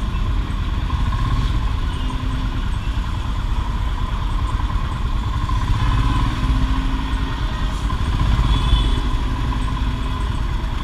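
Royal Enfield Himalayan's single-cylinder engine running at low speed in stop-and-go traffic, a steady low engine sound with no sharp events.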